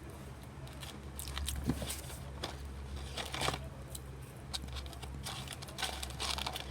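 A child chewing and crunching on French fries, with irregular crunches and crinkling, over a low steady hum.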